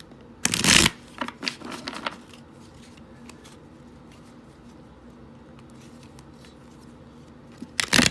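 A deck of tarot cards being shuffled: a loud riffle about half a second in, a few short shuffling rustles after it, and another riffle near the end.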